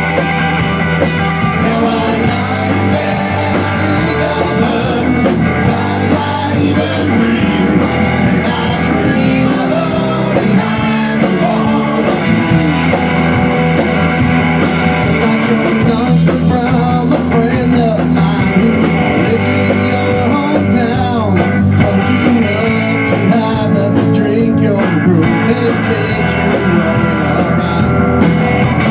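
Rock band playing live in a small rehearsal room: electric guitar, electric bass and a Tama drum kit.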